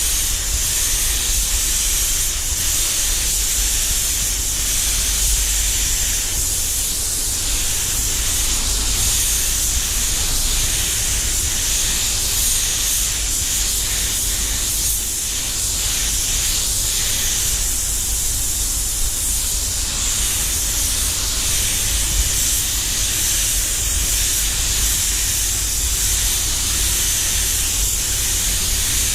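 Air spray gun (Devilbiss DV1) hissing steadily as it sprays metallic base coat, with a steady low rumble underneath.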